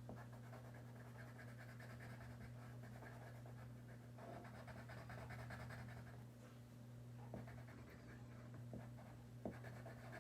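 Faint scratching of a coloured pencil on paper over a steady hum, with a few light clicks in the second half.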